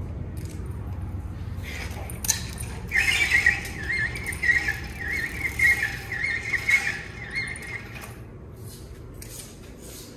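A small bird singing a quick, warbling run of high chirping notes for a few seconds, over a steady low hum.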